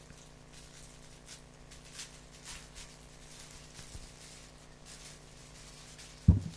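Low room tone with a steady hum and faint scattered clicks and rustles. One sharp low thump comes near the end, the loudest sound here.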